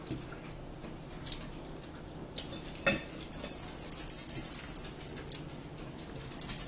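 Eating sounds at a table: forks clicking and scraping on plastic plates, with chewing, as scattered short clicks and a busier run of clatter in the middle.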